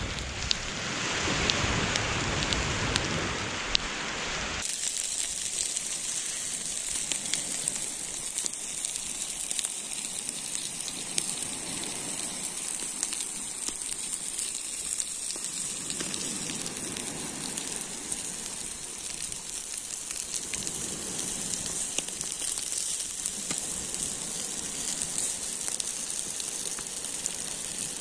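Large mullet grilling over an open fire, its fat sizzling in a steady hiss with scattered small crackles and pops from the flames. For the first four and a half seconds a fuller rushing noise covers it, then stops suddenly.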